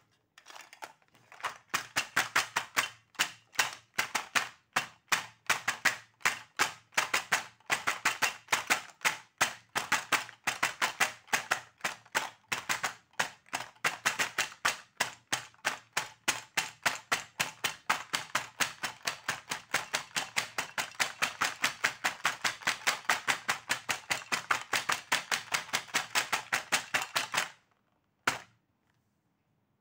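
Rapid, even clicking, about four sharp clicks a second, that stops shortly before the end with one last click after a short gap.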